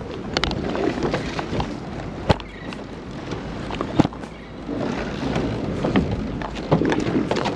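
Wind buffeting the microphone over water washing against a boat's hull, with two sharp knocks about two and four seconds in.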